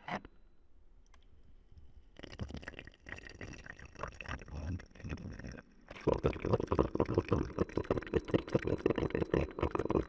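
Ninja CP301 drip coffee maker running its first-use plain-water brew cycle. The water heats with irregular sputtering and gurgling that grows louder and denser about six seconds in. A faint high-pitched tone sounds under it.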